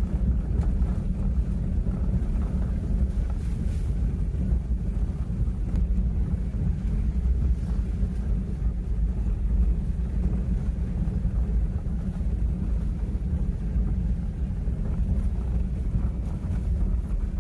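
A moving vehicle's steady low rumble of engine and road noise.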